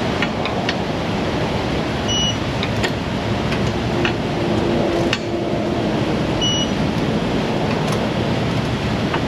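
Steady road and wind noise inside a moving vehicle's cabin, with a short high beep twice.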